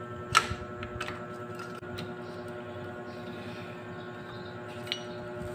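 Metal motorcycle clutch parts clinking as they are fitted back into the engine case by hand: one sharp click about half a second in, a few light taps, and a short ringing ping near the end, over a steady electrical hum.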